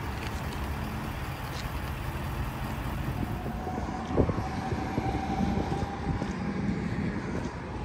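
A motor vehicle's engine running steadily with a low rumble, and one short thump about four seconds in.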